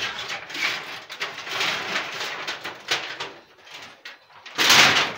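Corrugated metal roofing sheets scraping and rattling as they are dragged and shifted off a fish-smoking pit, in a series of rough scrapes with a louder, longer scrape near the end.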